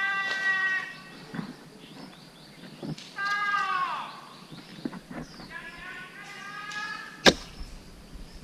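An animal calling several times: high-pitched, drawn-out cries, one of them sliding down in pitch about three seconds in. There is a single sharp crack near the end.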